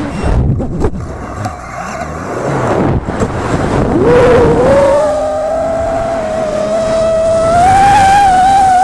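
FPV drone's electric motors whining: the pitch drops away abruptly at the start, leaving a rough, noisy stretch. About four seconds in, the motors spool back up to a steady whine that creeps slowly higher near the end.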